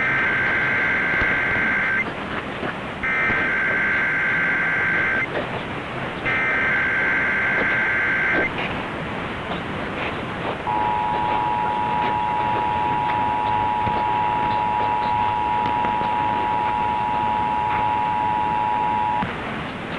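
Emergency Alert System test on AM radio: three bursts of the screeching digital header data, about two seconds each and a second apart, then the two-tone EAS attention signal held steady for about eight seconds before it cuts off, all over AM static hiss.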